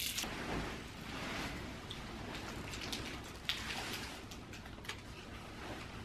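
Plastic candy-bar wrapper crinkling and rustling, with small scattered crackles, as a Kit Kat is unwrapped by hand.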